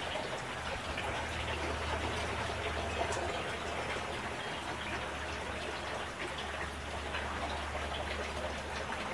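Water splashing and trickling steadily from a small garden fountain, with a low steady hum underneath.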